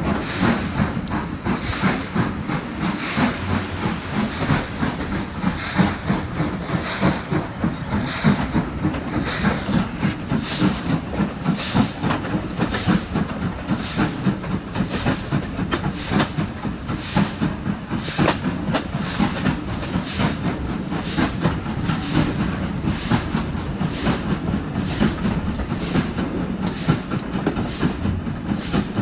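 Stanier Black 5 4-6-0 steam locomotive working hard at the head of a passenger train, heard from an open carriage window: a steady chuffing exhaust beat over hiss and wheel and rail noise. The beats come faster about halfway through as the train gathers speed.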